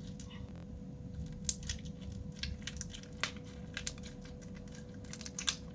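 Bead-filled crunchy slime being kneaded by hand, the beads giving off irregular sharp crackles and clicks.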